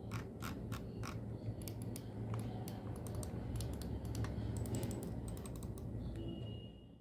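Logitech G502 Hero gaming mouse clicking as it is used: a quick, irregular series of sharp clicks from its buttons, over a steady low hum.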